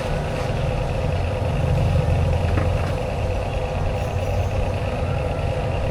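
Radio-controlled construction vehicle running: a steady low mechanical hum with a constant higher-pitched whine over it.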